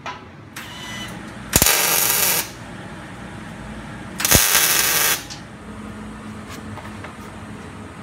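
MIG welder tacking square steel tubing: two short bursts of arc noise, each under a second long and about two and a half seconds apart.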